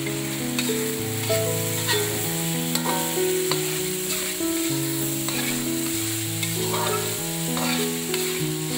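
Ground spice paste sizzling in hot oil and a little water in a wok, stirred with a metal spatula. A slow background melody plays over it.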